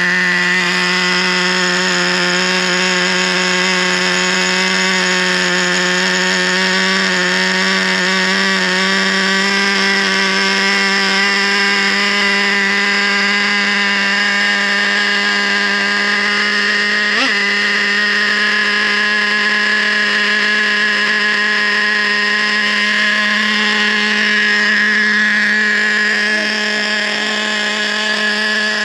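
Traxxas 3.3 two-stroke nitro engine idling steadily during its break-in, at an idle that is kind of high. A brief click sounds about seventeen seconds in.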